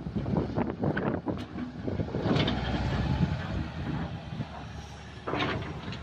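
Excavator at work: its diesel engine running steadily with irregular metallic clanks and knocks.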